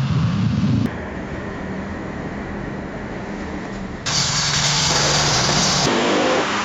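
Car engine revving, cut off abruptly about a second in, followed by a steadier, quieter vehicle rumble. About four seconds in, a loud, sudden hiss begins and lasts nearly two seconds before easing.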